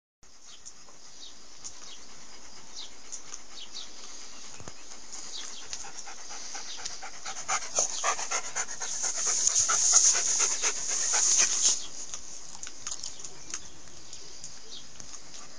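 Alaskan Malamute panting, with breathy, crackly strokes over a steady hiss, loudest in the middle and easing off after about twelve seconds.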